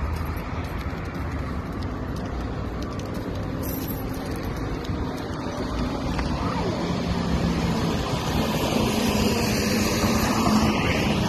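Road traffic going by, with a car passing close and growing louder near the end.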